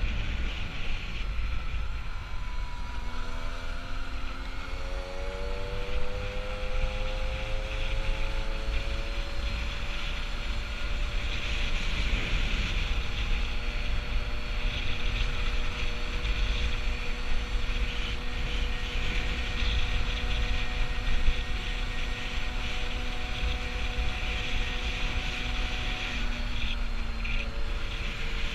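Peugeot 103 moped's 50cc two-stroke single-cylinder engine under way, with heavy wind rumble on the microphone. The engine note dips briefly early on, climbs steadily for several seconds as the moped accelerates away, holds a steady pitch while cruising, then drops a little near the end.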